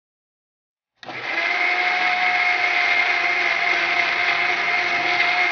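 Electric mixer grinder starting abruptly about a second in and then running steadily with a constant whine, grinding blanched spinach into a paste.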